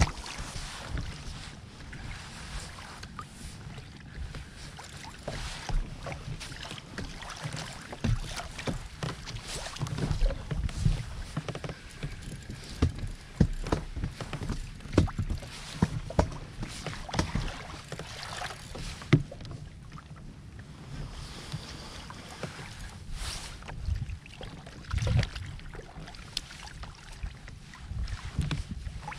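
Water lapping and slapping against the plastic hull of a Hobie Outback kayak, with irregular small knocks and clicks, and wind buffeting the microphone.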